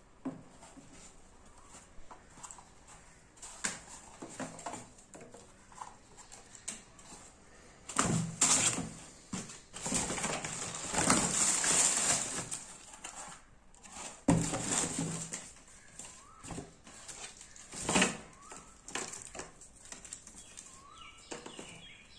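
Crumpled tissue-paper packing rustling and crinkling as a new sandal is unwrapped by hand from its shoebox, in irregular bursts, with the longest and loudest stretch about halfway through.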